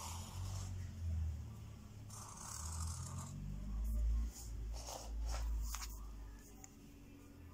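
Pen strokes scratching across paper, with a few short clicks and taps, over a low rumble that is loudest in the middle.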